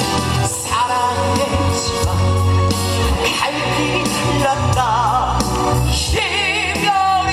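Live trot song with band accompaniment: a male singer holds long notes with a wide vibrato over steady bass and chords.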